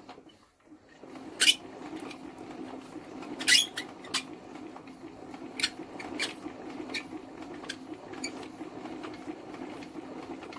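Norman flat-twin engine being turned over while its magneto's plug lead is checked for a spark: a steady mechanical whirr with sharp, irregular clicks about every second, the loudest two in the first few seconds.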